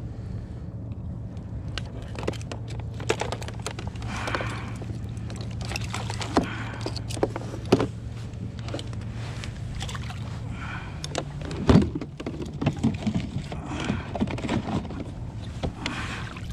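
A steady low boat-motor hum that fades out about twelve seconds in, under scattered clicks and knocks of fishing gear handled on a small fiberglass skiff while a speckled trout is clipped onto a stringer. One sharper knock comes near the end.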